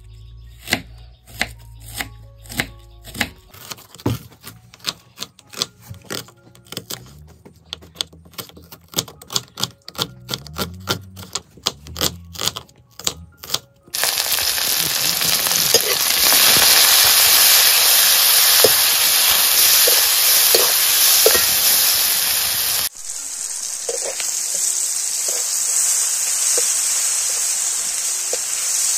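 A knife slicing small red onions on a wooden chopping board, sharp cuts about two a second. Then, about halfway through, sliced onions frying in hot oil in an iron kadhai, a loud steady sizzle that turns quieter for the last few seconds.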